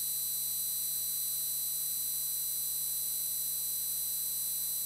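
Steady electrical hum with a constant high-pitched whine, the background noise of the audio system.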